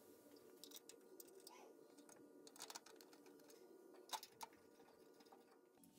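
Near silence, with a few faint scattered clicks and taps of small metal parts being handled while a metal wiper cowl is bolted down; the loudest tap comes about four seconds in.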